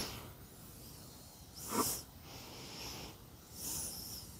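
A person breathing through the nose: two short, quiet breaths about two seconds apart, over low room noise.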